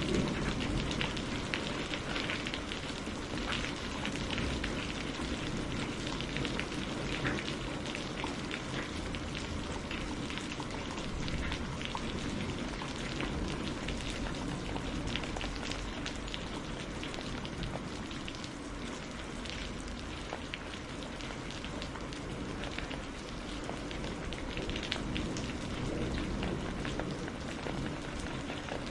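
Steady rain falling on a hard surface, a constant hiss with many distinct drop impacts ticking through it.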